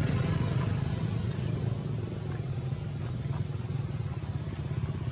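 A motorcycle engine running steadily with a low, fast throb.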